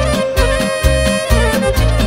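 Live Moldovan wedding band music: violin and saxophone playing a lively melody with accordion, over a steady bass-and-drum beat.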